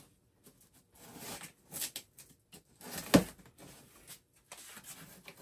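A blade slicing through blue painter's tape along the top of a cardboard box, in short scraping strokes, with a sharp snap about three seconds in as the tape and cardboard flap are pulled open.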